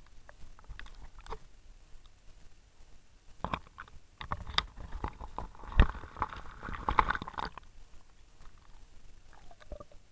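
Dry grass and brush rustling and crackling right against the camera's microphone as it pushes through vegetation: scattered clicks, then a dense run of crackling and knocks from about three and a half to seven and a half seconds in, with one sharp knock near six seconds.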